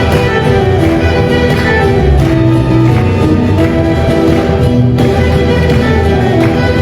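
Live ensemble music with violins and other string instruments playing a steady melody.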